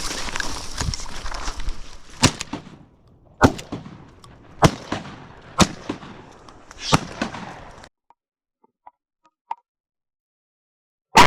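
Five shotgun shots at duck hunters' targets, fired about a second apart, over a rushing noise. The sound cuts off abruptly after the last shot, and another loud burst comes at the very end.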